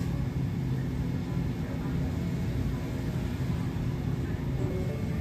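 Convenience store ambience: a steady low hum with faint voices of people in the background.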